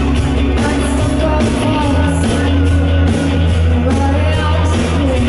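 Live rock band playing: electric guitars, bass and drums with a steady cymbal beat, and a woman singing over them.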